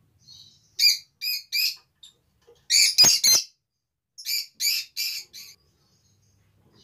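Rosy-faced lovebirds giving short, shrill chirps in quick groups of about three, with a louder, harsher cluster of calls about three seconds in.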